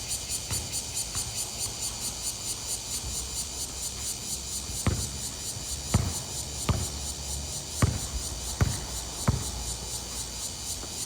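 Steady high-pitched insect chorus, crickets trilling with a fast even pulse. About six sharp knocks fall irregularly in the second half.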